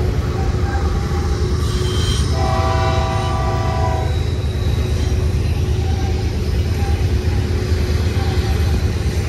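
Freight train rolling through with a steady low rumble. A locomotive's air horn sounds one chord for about a second and a half, starting about two and a half seconds in.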